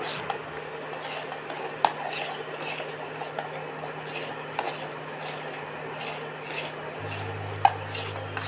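Metal spoon stirring milk in a stainless-steel pot, scraping and clinking against the sides and bottom, with sharper knocks about two seconds in and near the end. Under it is the low hum of the induction cooktop, which drops out at the start and comes back about seven seconds in.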